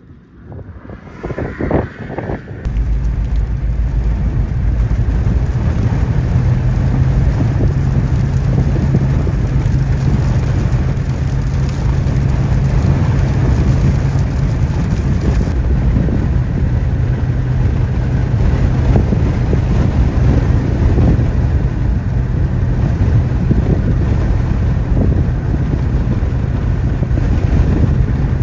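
Steady road and engine noise of a moving car with wind rush, setting in about three seconds in and holding on evenly.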